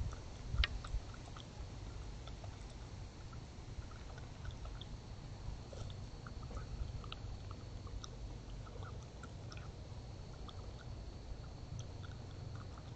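Small scattered clicks and rustles of a raccoon foraging and eating in grass, with a couple of soft thumps about half a second in, over a steady low rumble and a faint high-pitched whine.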